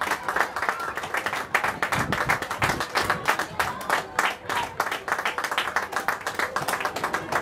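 Crowd of spectators clapping and applauding, many hands at once.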